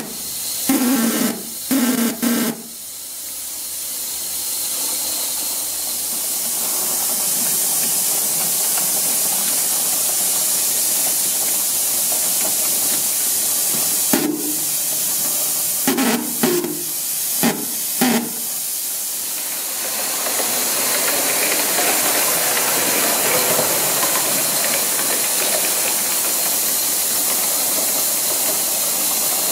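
Coal-fired Gauge 1 live-steam model locomotive hissing steadily with steam. A few short, louder bursts with knocks come near the start and again about halfway through, and the hiss grows fuller for the last third.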